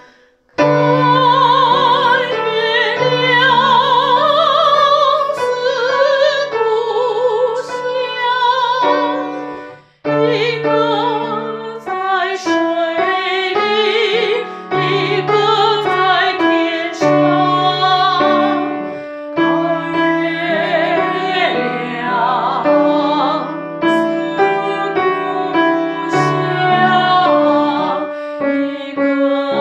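Female voice singing a song in a classical, operatic style with vibrato, accompanied on piano; the phrase breaks off briefly about ten seconds in and then resumes.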